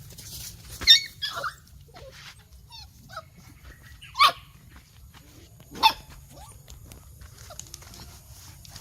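Dogs barking in play: three short, sharp barks about one, four and six seconds in, with softer yips right after the first.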